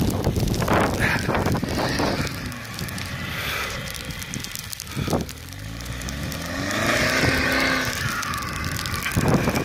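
Land Rover Defender turbo-diesel engine pulling through deep snow, its revs climbing in the second half, under gusty wind noise on the microphone.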